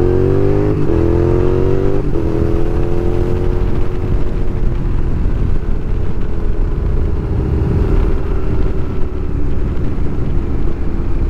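2006 Suzuki SV650's 645 cc V-twin engine accelerating, with two quick upshifts about one and two seconds in. Each shift drops the pitch before it climbs again. The engine then settles into a steady cruise.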